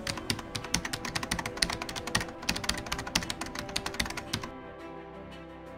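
Rapid keyboard typing clicks, a sound effect for on-screen text typing itself out, over soft background music with held notes. The typing stops about four and a half seconds in, leaving the music.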